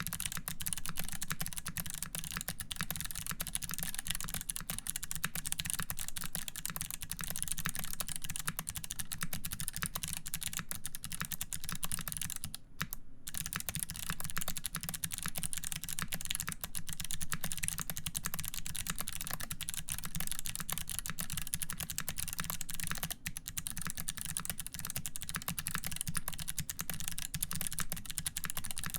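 Steady, fast typing on a custom tenkeyless mechanical keyboard with lubed Kailh BOX White clicky switches, GMK keycaps and an aluminium plate: a dense stream of key clicks with a short pause about halfway through.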